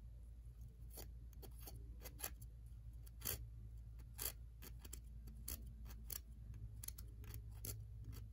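Faint, irregular light clicks and scrapes of a pick being run around the small gears of a Tyco Power Torque drive to work in fresh grease and oil, over a steady low hum.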